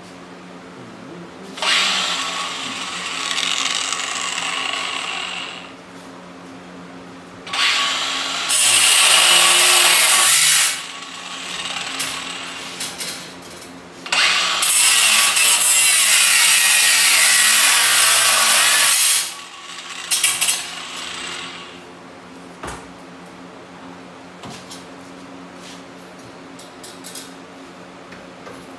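A handheld power tool run in three bursts of a few seconds each, working on the metal futon frame, the last burst the longest. A few sharp clicks and a knock follow, over a steady low hum.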